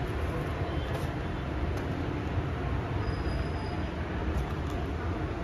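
Steady low background rumble with a few faint light clicks.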